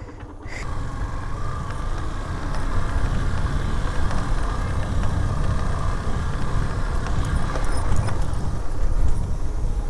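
Yamaha FZS motorcycle riding along a dirt farm track: its single-cylinder engine runs under a heavy, irregular wind rumble on the microphone. The sound comes in suddenly about half a second in.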